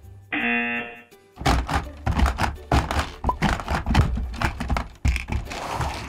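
Hungry Hungry Hippos game played hard: rapid plastic clacking and thumping of the hippo levers and marbles, many strikes a second, after a short steady buzzing tone about half a second in.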